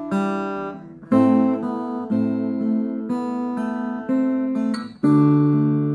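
Acoustic guitar played through an Aroma AG-15A, a small 15-watt acoustic guitar amp with a 5-inch speaker. Chords are struck about once a second and left to ring.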